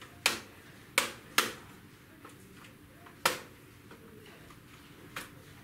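Five sharp clicks and taps of small hard parts being handled, spread unevenly over a few seconds, the last one softer.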